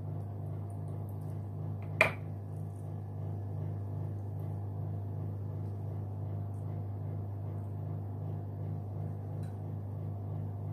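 A steady low hum, pulsing evenly, with one sharp click about two seconds in.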